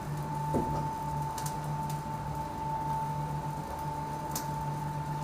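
Steady motor hum with a constant high whine, the lower hum wavering in and out, with a few faint clicks.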